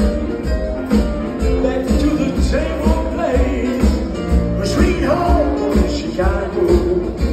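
A live band playing a song with singing over a steady beat.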